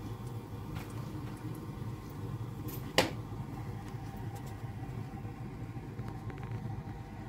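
Steady low hum of room background noise, with a single sharp click about three seconds in.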